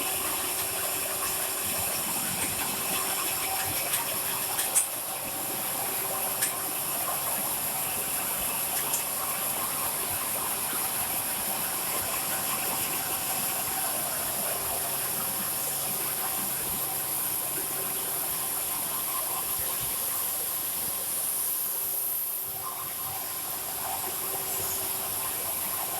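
Automatic can body welding machine running: a steady mechanical hiss with a faint on-and-off hum and a few sharp clicks about five and six and a half seconds in.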